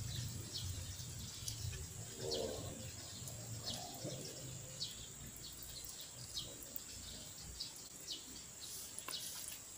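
Small birds chirping: short, high, falling chirps about once a second, with two lower calls a few seconds in.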